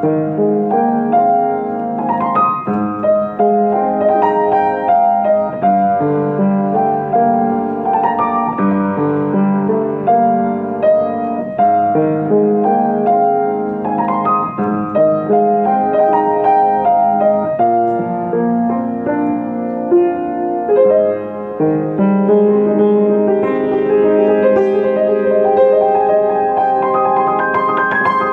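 Solo piano played with both hands: an arrangement of a Taiwanese pop ballad in E-flat major, melody over flowing chords. The playing grows fuller and reaches higher in the last third.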